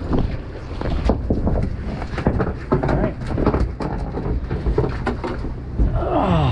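Steady low rumble of wind on the microphone and the boat, with scattered knocks and clatter from a landing net and fishing gear being handled on the deck, and a short falling tone near the end.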